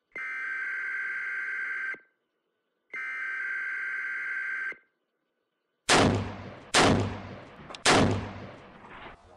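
Two long, steady electronic beeps, each lasting nearly two seconds with a short gap between, then three loud gunshots about a second apart, each followed by a long echoing tail.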